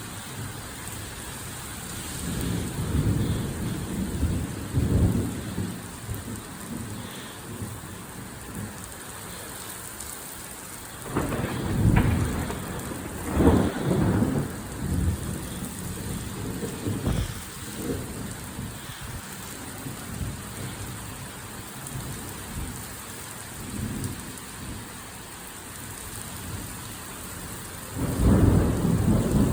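Heavy rain pouring steadily, with repeated thunder. There are rumbles a couple of seconds in, a sharp crack and loud peal about a third of the way through, smaller rumbles after that, and another loud rumble starting near the end.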